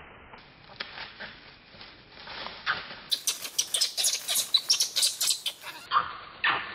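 Dry leaf litter rustling and crackling as a mother macaque and her baby scuffle on the forest floor, with a dense run of sharp crackles about halfway through.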